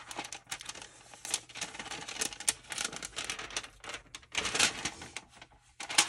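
Paper window envelope with a plastic window film being handled and flexed: irregular rustling and crinkling with short clicks, louder about four and a half seconds in and again near the end.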